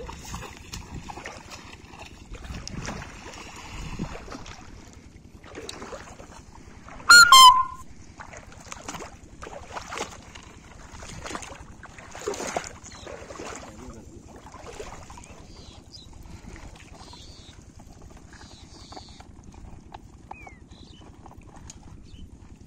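Water splashing as feet wade through shallow marsh water, tapering off to quieter rustling once on the grassy bank. About seven seconds in, a short, loud, high-pitched call of a few quick notes is the loudest sound.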